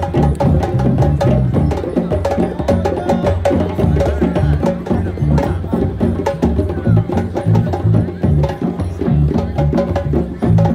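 Drum circle: several hand drums playing a dense, steady rhythm.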